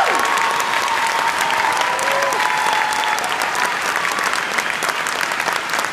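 Large audience applauding steadily, with a few cheering voices rising above the clapping.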